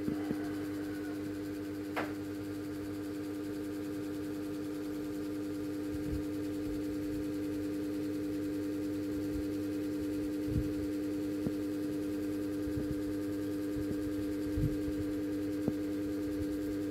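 Electric fan running with a steady motor hum, with a few faint knocks and taps over it, the sharpest about two seconds in.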